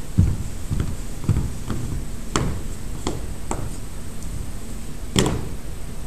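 Cadets' drill boots marching on a wooden hall floor: dull footfalls about twice a second, then a few sharper heel strikes and one loud stamp about five seconds in.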